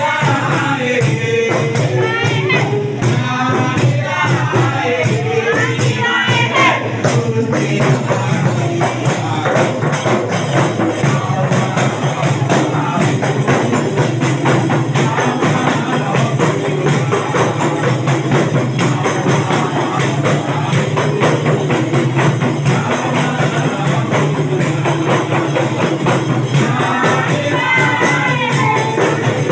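A group of women singing a dhikr to a fast, steady percussion beat with hand-clapping. The singing is clearest in the first few seconds and again near the end.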